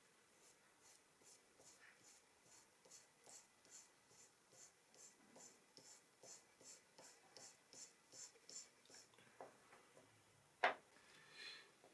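Dry pastel stick scratching across thin drawing paper in quick, even, repeated short strokes, about two or three a second, faint and high-pitched. The strokes stop, and near the end a single sharp tap follows.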